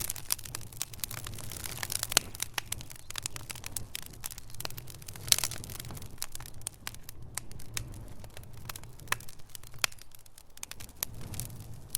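Wood fire crackling in a fireplace: a stream of sharp pops and snaps over a low rumble of flames. The pops are thickest in the first half, with one loud snap about five seconds in, and grow sparser after.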